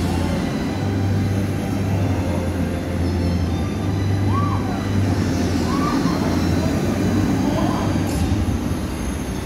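Steady low mechanical hum and rumble of ride machinery beside the F.L.Y. flying coaster.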